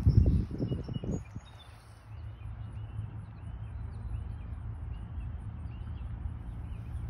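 Wind rumbling on the microphone, in heavier gusts for the first second, while a bird repeats a short chirp about twice a second.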